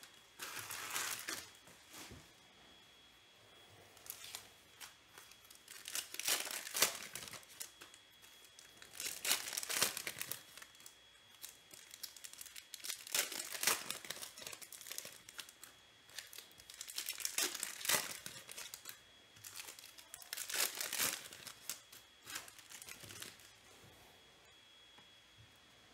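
Foil wrappers of 2021 Panini Select Baseball card packs being torn open and crinkled by hand. The rustling comes in bursts of about a second, every few seconds.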